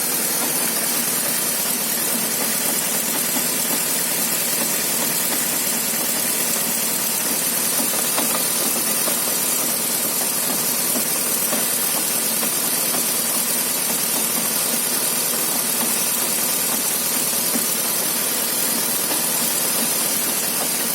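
BMW running steadily, with faint knocks that the owner presumes come from a worn driveshaft (propeller shaft).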